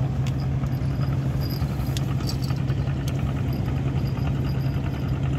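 An engine running steadily at idle, a constant low hum, with a few faint light clicks over it.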